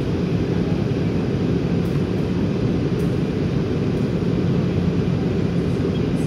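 Passenger jet cabin noise in flight: the steady, low, even noise of turbofan engines and airflow, with a faint steady hum underneath.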